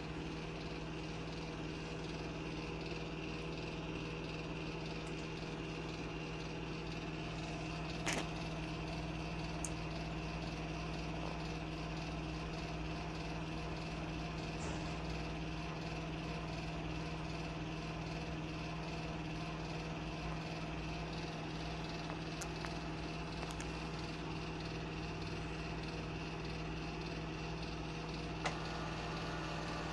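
HP Officejet 6500A Plus inkjet printer starting up: a steady low hum with a few isolated sharp clicks, and a change in its tones near the end.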